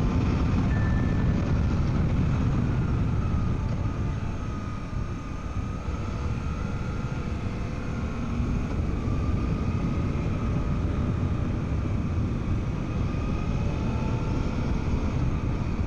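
Wind rush and the engine of a 2024 Suzuki V-Strom 800DE parallel-twin motorcycle under way, heard from inside the rider's helmet. The engine note wavers; the sound eases slightly about five seconds in, then builds again.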